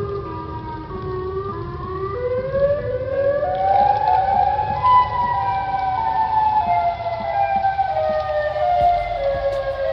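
Several outdoor warning sirens wailing together at slightly different pitches. The tones climb over the first few seconds, then slowly fall, over a low rumble of background noise.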